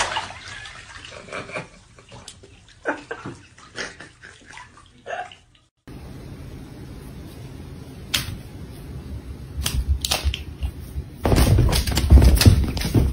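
Bath water sloshing and splashing in a filled bathtub as a body moves in it, with a few short splashy strokes. About six seconds in it gives way to a steady low hiss with a few sharp clicks, then loud low rumbling and knocking near the end.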